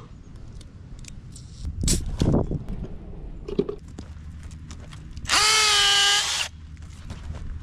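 Cordless drill run once for about a second near the end, a steady motor whine boring an injection hole through the bark into the cambium at the base of a tree trunk. A few light handling knocks come before it.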